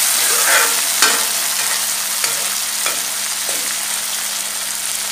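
Chopped tomatoes and onion sizzling in oil in a metal kadhai while a metal ladle stirs them, scraping and knocking against the pan about once a second.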